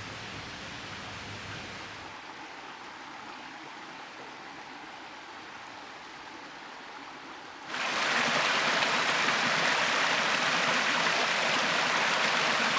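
Clear mountain stream running over rocks: a soft, steady water hiss, then, about eight seconds in, a much louder rush of close-up running water that cuts in abruptly.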